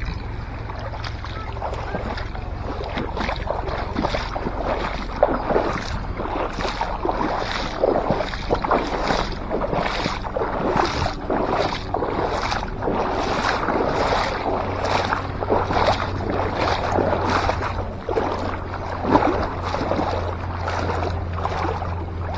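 Small waves lapping and splashing irregularly against a rocky shoreline, one to two splashes a second, over a steady low wind rumble on the microphone.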